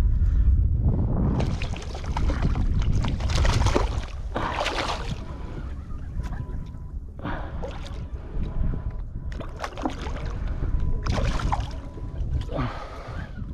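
Water sloshing against a fishing kayak's hull in irregular surges every second or two, over a steady low wind rumble on the microphone.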